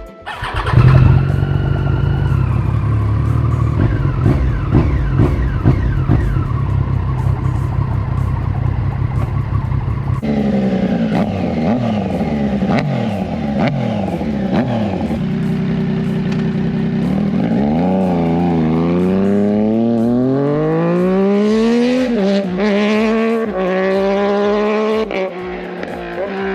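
Triumph Street Triple's three-cylinder engine, first running steady and loud, then revving up and down. In the second half it accelerates hard in long rising sweeps, each broken by a quick drop in pitch at a gear change.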